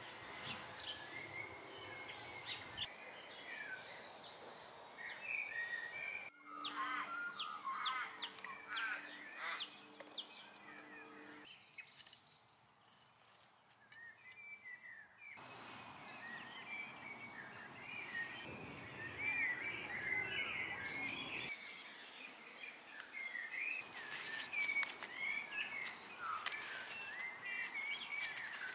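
Garden birds singing and chirping, a busy mix of short warbling calls. Near the end comes a run of light clicks.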